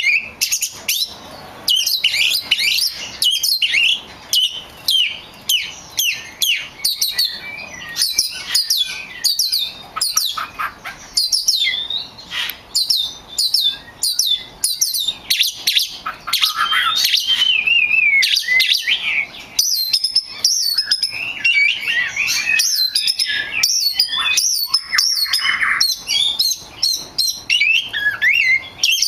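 Several small birds chirping together: a dense, unbroken stream of quick, high, overlapping chirps.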